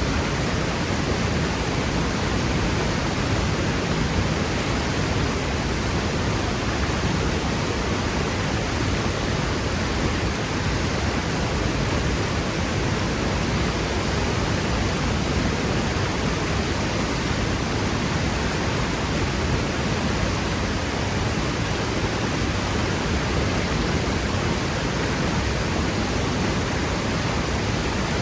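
A powerful waterfall crashing down onto rock: a steady, unbroken rush of falling water, heavy in the low end.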